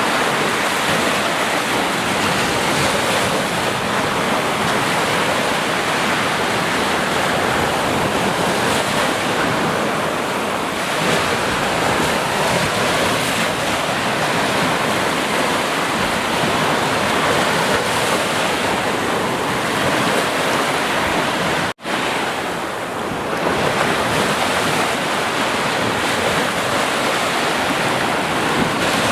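Sea waves washing and breaking on a shore in a continuous, even rush of surf, with some wind. About three quarters of the way through the sound cuts out for an instant and comes back.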